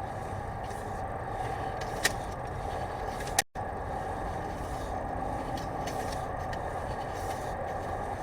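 Steady mechanical drone with a constant hum, like an engine running, with one sharp click about two seconds in and a sudden brief cut-out of all sound about halfway through.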